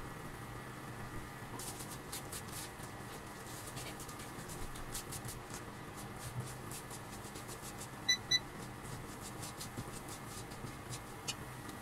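Faint irregular crackling and ticking from sugar and a little water heating in a stainless steel pan as it is stirred with a silicone spatula, with two short electronic beeps in quick succession about eight seconds in.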